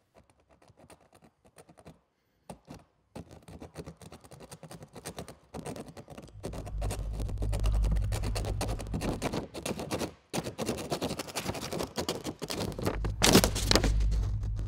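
A pen scribbling hard and fast on lined notepaper, dense scratching strokes that start about three seconds in and grow louder, with the strongest scratch near the end. A low steady hum runs underneath from about halfway.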